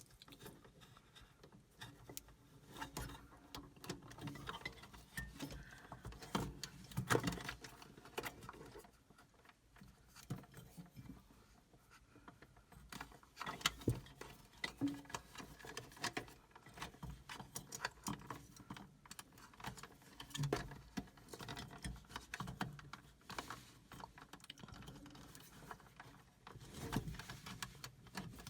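Scattered light clicks, taps and rattles of small plastic and metal parts being handled: a mini fridge's compressor start relay (PTC and overload unit) being pulled off its two pins and the new one pushed on.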